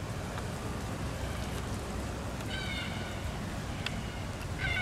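Wind rumbling on the microphone, with two short, slightly falling animal calls, one about halfway through and one at the very end, and a single sharp click just before the second.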